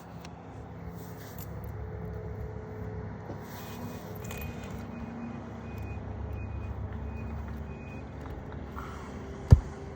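A steady low rumble like a truck engine running in the background. Near the end comes one sharp strike of a roofing hammer driving a nail back into a shingle.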